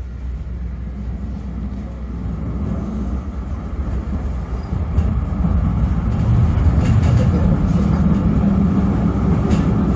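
Duewag M8C high-floor tram running along the street, heard from inside the passenger compartment: a low rumble from its running gear and traction equipment that grows steadily louder, with a few light clicks near the end.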